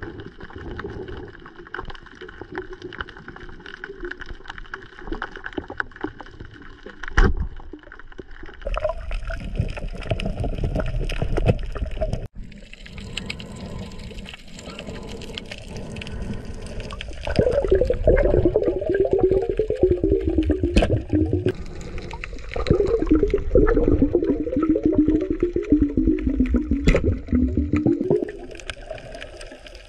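Underwater sound: a steady muffled water hiss with gurgling bubbles and a few sharp clicks, the gurgling growing louder and wavering from a little past the middle.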